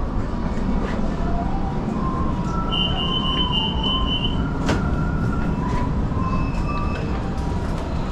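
Metro train running, heard from inside the car: a steady low rumble with a faint whine that wavers in pitch. About three seconds in there is a short run of rapid high beeps, and a sharp click follows soon after.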